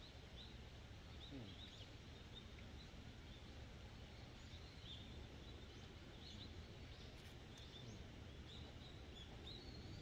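Faint outdoor ambience: small birds chirping with many short high calls scattered throughout, over a low steady rumble. A couple of faint clicks about seven seconds in.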